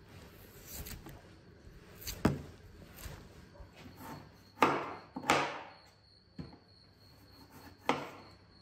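Kitchen knife cutting and scraping through the hide of a raw cow's leg on a wooden cutting board: a sharp knock of the blade about two seconds in, two longer slicing strokes around the middle, and another knock near the end. A faint steady high-pitched tone sets in about halfway.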